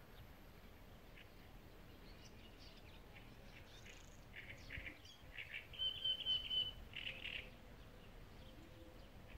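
Birds chirping and calling in short bursts, most of them between about four and seven and a half seconds in, with one high trilled note near the middle, over a faint outdoor hush.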